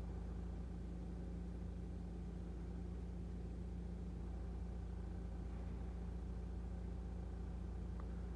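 Steady low hum of a Mercedes W247 running, heard inside its cabin, with a faint short tick near the end.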